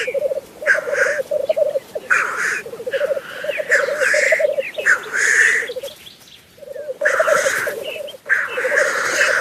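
Black grouse males displaying on a lek: the low, rolling bubbling coo runs in long phrases, with hissing sneeze-like calls over it. It drops away briefly about two-thirds of the way through.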